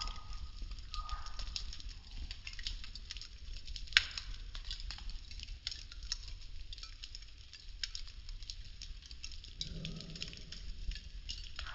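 Popsicle-stick model house burning: dense crackling and popping of the burning wooden craft sticks, with one sharp, loud pop about four seconds in.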